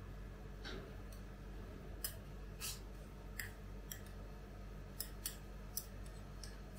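Metal spatula scraping frozen ice cream off a chilled steel plate: about eight short, sharp scrapes as the sheet is pushed up into a roll, over a faint steady hum.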